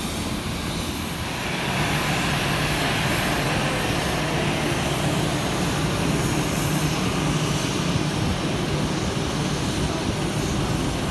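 Jet airliner engines running steadily: a constant rush of noise over a low hum, growing a little louder about a second and a half in.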